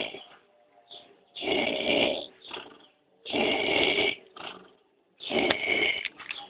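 A sleeping man snoring in a steady rhythm: one snore about every two seconds, three in a row, with quiet gaps between them.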